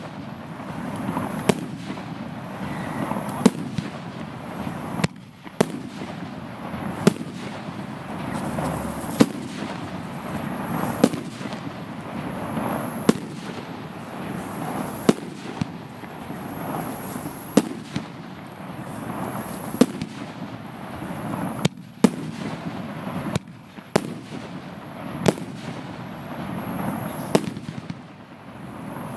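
Piromax 'No Limits' 50 mm F3 firework battery firing shot after shot: a sharp bang about every two seconds, each trailed by a rumble.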